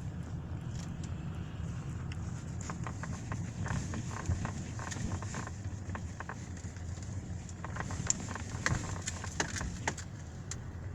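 Interior dashboard panel of a Hyundai i40 knocking and rattling in irregular short clicks over the steady low rumble of the car on the move. The clicks come in two clusters, the sharpest about eight seconds in: a loose panel rattle in the cabin.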